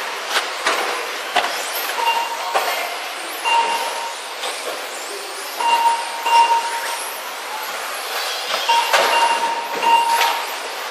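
Electric RC touring cars racing: motors whining up and down with tyre noise and occasional sharp clacks. Short electronic beeps repeat every second or two from the lap-counting system as cars cross the timing line.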